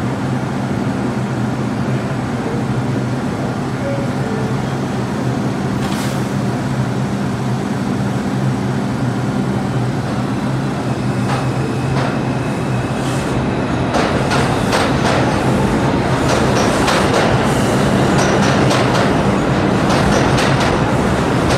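R142 subway train standing in the station with a steady low hum. About two-thirds of the way through it pulls out, getting louder, its wheels clicking over the rail joints more and more often as it picks up speed.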